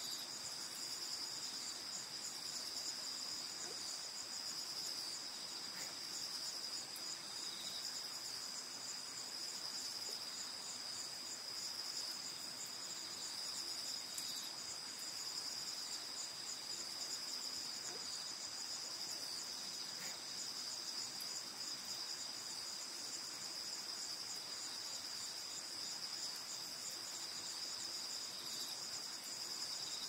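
Chorus of night insects calling: a steady high-pitched trill with a second, rapidly pulsing trill layered just above it.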